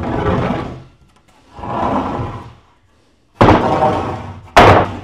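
A series of loud thumps or slams. Each one dies away over about a second, one swells in more gradually, and the loudest comes near the end.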